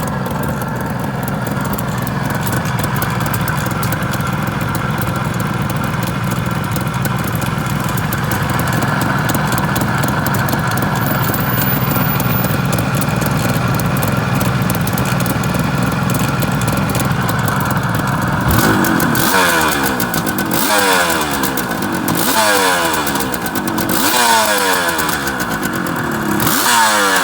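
Suzuki GT380's air-cooled two-stroke triple idling steadily, then revved in a series of quick throttle blips from about two-thirds of the way in. The engine is freshly overhauled and, by the seller's account, free of abnormal noises.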